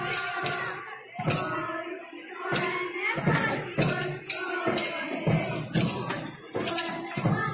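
Folk dance music: a song with singing over repeated percussion strikes.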